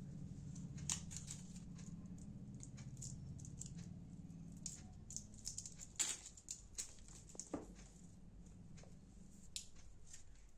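Hands handling packaging and its contents: scattered light clicks, taps and rustles, the loudest about six seconds in, over a low steady hum.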